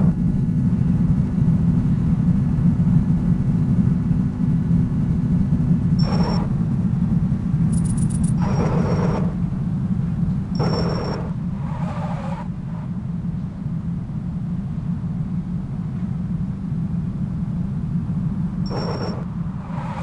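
Steady low rumble, with several brief higher-pitched sounds over it.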